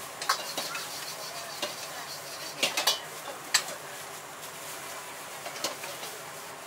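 A metal ladle scraping and clanking against a wok as egg fried rice is stir-fried, over a steady sizzle. Several sharp clanks, the loudest bunched together about halfway through.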